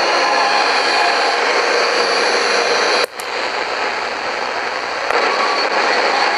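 Eton FR250 shortwave radio giving loud static hiss as it is tuned between stations. About three seconds in there is a click and the hiss drops out briefly, coming back a little quieter and rising again about five seconds in.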